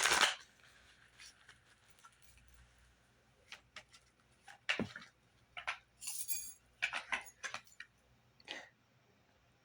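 Tarot cards being handled: a brief rustle of the deck at the start, then scattered light clicks and rustles as cards are moved and laid down.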